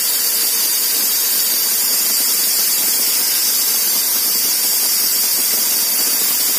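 Loud, steady hiss that stays unchanged throughout, bright and high with almost no low end.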